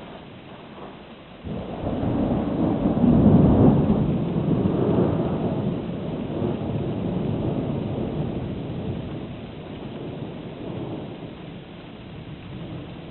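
A thunderclap breaking about a second and a half in, swelling to its loudest a couple of seconds later, then a long low rumble of thunder that slowly fades.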